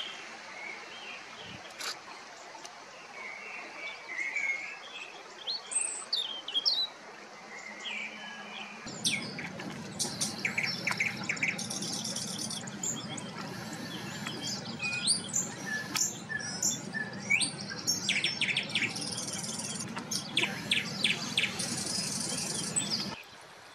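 Wild birdsong: several birds chirping and singing, with many short high calls, some sliding in pitch, and quick rapid trills. About nine seconds in, a steady low background rumble joins the calls.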